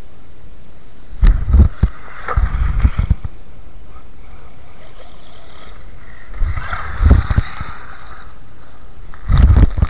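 Wind buffeting the microphone in four loud, low gusts over a steady hiss.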